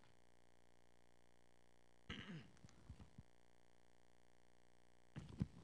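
Near silence: quiet room tone, with a brief faint voice-like sound about two seconds in and faint sounds again near the end.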